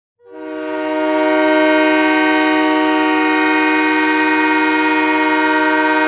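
Tucson Roadrunners' hockey goal horn sounding a loud, steady chord of several held notes, coming on about a quarter second in and swelling to full level within a second or so.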